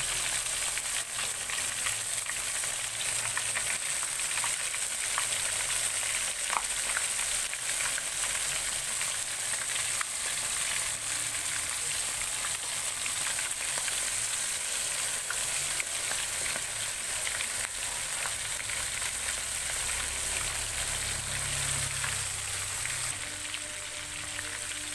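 Cornstarch-coated chicken wing pieces deep-frying in hot oil: a steady sizzle with scattered small pops and crackles as the chicken lollipops cook.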